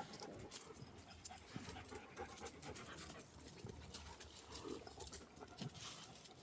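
A dog panting quietly, with faint scattered ticks and rustles.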